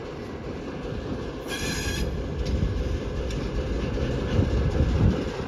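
ChME3 diesel shunting locomotive approaching a level crossing: low engine rumble and rolling noise growing louder. A brief high-pitched squeal cuts in about a second and a half in.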